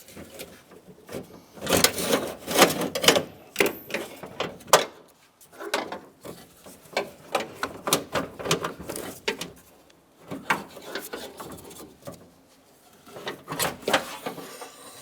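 Metal door latch assembly and its linkage rods being handled and worked free of a pickup's door, giving irregular bursts of clicks and rattles with quieter pauses between.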